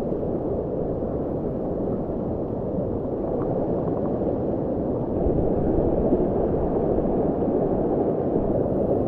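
Mountain stream water rushing steadily, a low, even rush of flowing water.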